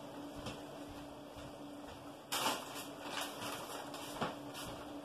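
Kitchen rummaging while fetching chili powder: a few short knocks and rustles, the loudest about two seconds in and another near four seconds, over a faint steady hum.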